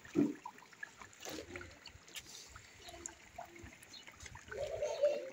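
Pork pieces simmering in hot lard in a large steel pot, bubbling with scattered small pops and crackles. A short louder sound comes just after the start and another near the end.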